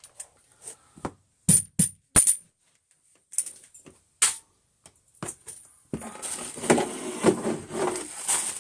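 A few sharp clicks and taps of a container being handled, then about six seconds in a continuous rattling rush of dry debris and flour being tipped out onto carpet.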